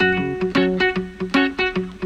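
Background music: a plucked guitar playing a quick pattern of picked notes.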